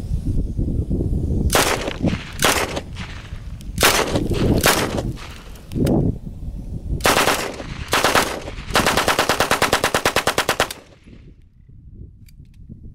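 Sten 9mm submachine gun firing on full auto: several short bursts, then a longer burst of about two seconds at roughly ten shots a second that stops abruptly.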